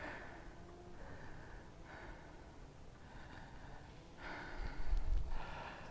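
A person breathing hard, about one breath a second, the breaths getting louder in the last couple of seconds, as after an uphill hike. A low rumble on the microphone about four and a half seconds in.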